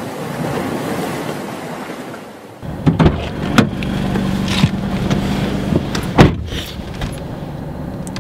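Surf washing on a beach, fading away; then the sounds of a car cabin: a steady low hum with a car door handled and shut, three sharp knocks, the loudest about six seconds in.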